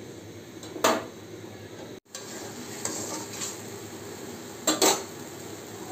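A metal spatula stirring and knocking against a karahi of simmering fish curry: one sharp knock about a second in and two quick knocks near the end, over a steady low bubbling hiss.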